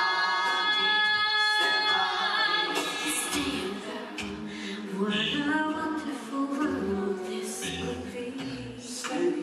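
A cappella vocal group of five voices, a woman and four men, singing live through microphones with no instruments. A held chord for about the first two seconds gives way to moving parts over a low bass voice.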